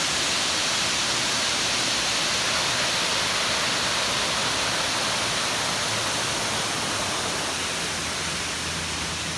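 Waterfall: a steady rush of falling water, easing slightly near the end.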